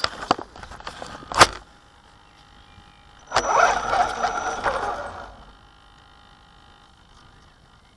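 Handling knocks and a sharp click on the truck's onboard camera in the first second and a half, then the Axial Wraith RC crawler's electric motor and gearbox whirring for about two seconds as it drives over grass, with a faint steady whine in the quiet stretches.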